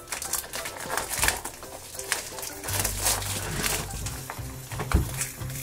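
Plastic blister packaging crinkling, clicking and crackling in short bursts as hands work open a Hatchimals CollEGGtibles 2-pack.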